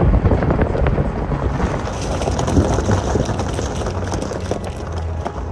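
Wind blowing across the microphone: a loud, uneven, rumbling rush with crackling buffets.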